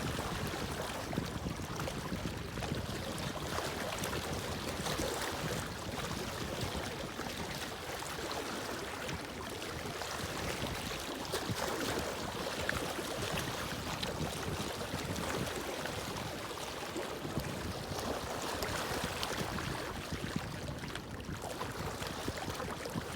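Water lapping with small waves: a steady wash of noise broken by many small irregular ticks and splashes.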